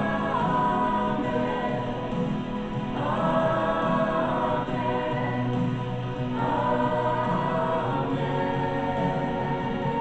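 Gospel choir singing in long held phrases.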